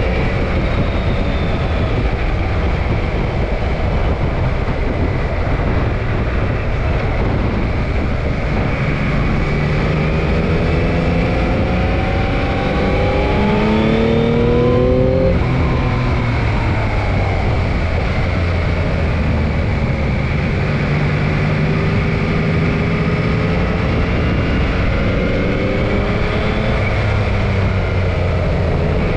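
Motorcycle engine heard from onboard at track speed, its note rising under hard acceleration to a peak about halfway through, then closing off and falling away before climbing again near the end. Heavy wind rush over the camera throughout.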